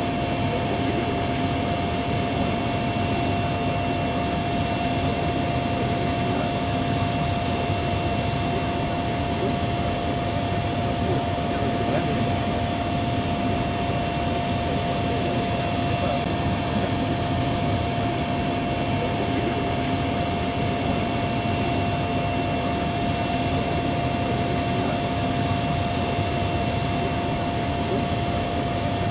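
Steady turbine whine over a rush of air from the parked Airbus Beluga XL, with two constant tones and no change in pitch or level: the aircraft's auxiliary power unit running on the ground.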